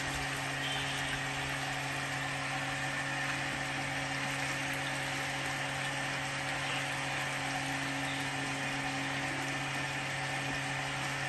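A drain-cleaning machine running with a steady hum while dirty water pours out of a drain pipe into the pit below as the line is worked through the blockage.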